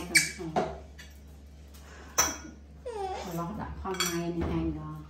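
Metal cutlery clinking against a plate and a stainless steel bowl in a few sharp clinks, the loudest near the start and another about two seconds in. A voice is heard in the second half.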